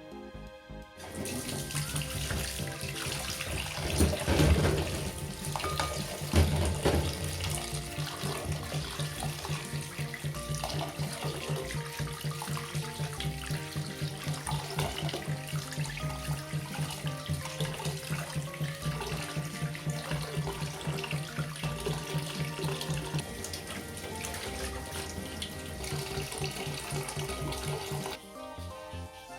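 Tap water running into a kitchen sink, starting about a second in and stopping near the end, with background music playing over it.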